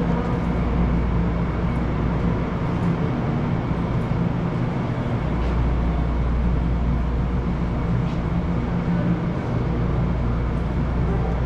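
Steady low mechanical rumble with a faint hum, typical of a train platform, dipping briefly about five seconds in and again near nine seconds.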